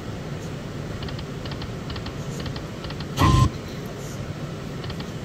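Casino slot-machine floor: a steady hubbub with scattered faint electronic clicks and tinkles. About three seconds in, a short loud sound from the Dragon Link video slot, a low thump with a brief tone, as its reels spin.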